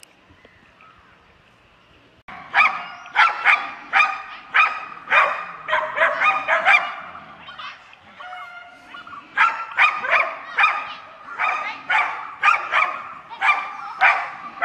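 Dogs barking at a gaur, rapid and persistent at about two barks a second, starting suddenly about two seconds in. The barking eases into softer yelps briefly in the middle, then picks up again.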